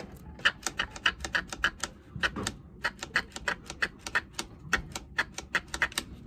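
Homelite XL-12 chainsaw's manual chain oiler being pumped: a quick, uneven run of sharp clicks, about five a second. It is the sign that the oiler is pumping again after its plunger O-ring was replaced.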